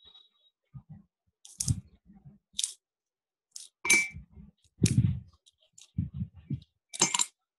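Irregular short clicks and knocks with gaps between: a few sharp, bright ones and several dull, low thumps, the loudest of them about five seconds in.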